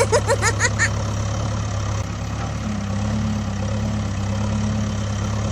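A motor vehicle engine idling with a steady low hum. In the first second there is a quick run of short, high, rising squeaks.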